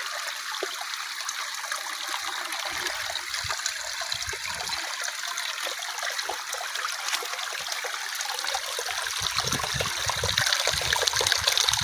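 Shallow river water flowing and trickling steadily over stones, with a few low rumbling bumps now and then.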